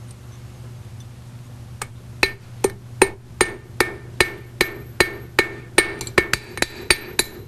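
Hammer forging a copper rod on a steel anvil. After a couple of quiet seconds comes a steady run of sharp metallic blows, each with a short ring, about two or three a second and quickening near the end.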